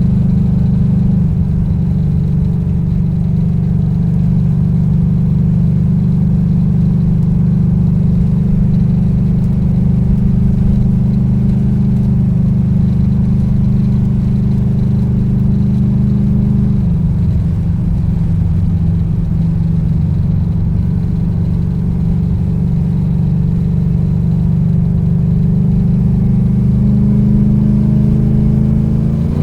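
Big-block V8 of a 1970 Chevelle heard from inside the cabin while driving, engine and exhaust running steadily. The pitch drops about a second in and again partway through, then rises near the end.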